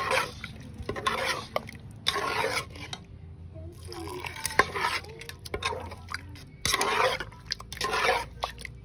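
Metal spoon stirring thick, wet soup with crab pieces in a pot, in a series of squelching strokes every second or so, with a few light clicks of the spoon.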